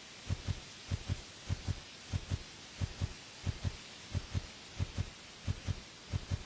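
A giraffe's hooves walking in a steady rhythm. The footsteps come as pairs of low, dull thuds about every two-thirds of a second.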